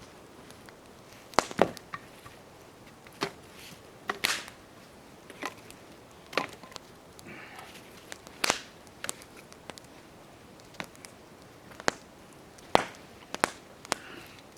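Wood campfire crackling: sharp, irregular pops and snaps, some in quick pairs, about one a second over a faint steady hiss.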